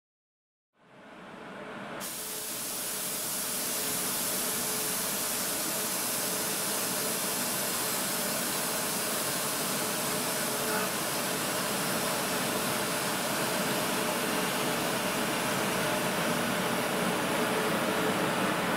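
DB Class 143 electric locomotive standing with its cooling blowers running: a steady hiss with a faint hum, fading in over the first couple of seconds.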